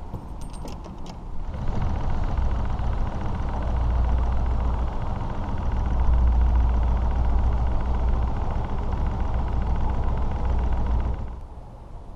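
Boat running at speed under motor power: a steady low engine rumble mixed with wind and water rush over the microphone, after a few light clicks at the start. It stops abruptly about a second before the end.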